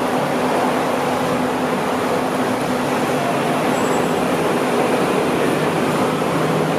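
Steady, dense road traffic noise from a busy street carrying double-decker trams, buses and cars.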